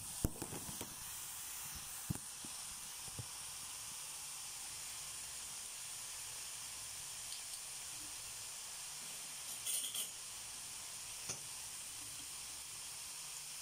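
Vegetables sizzling steadily in a frying pan, a soft high hiss. A few light knocks in the first seconds and a short clink about ten seconds in.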